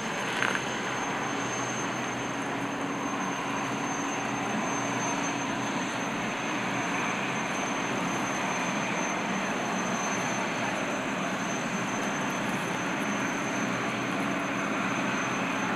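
Boeing Jetfoil 929-115's gas turbines running as it passes foilborne: a steady high whine over an even rushing noise. There is a short bump about half a second in.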